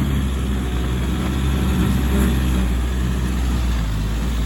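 Four-wheel-drive vehicle's engine running steadily at low revs, a continuous low hum with no revving.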